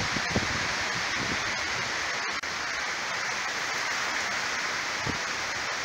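Heavy thunderstorm rain pouring down, a steady, even rush of noise that does not let up.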